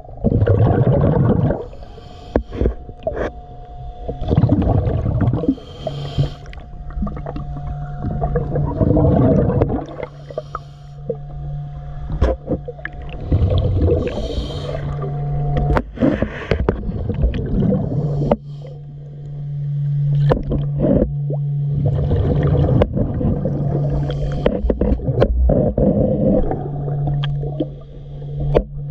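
Underwater sound of a diver breathing: loud surges of gurgling exhaust bubbles every few seconds, over a steady low hum.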